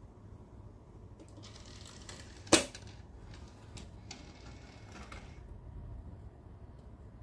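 A single sharp click about two and a half seconds in, with a few fainter clicks and two short stretches of hiss around it.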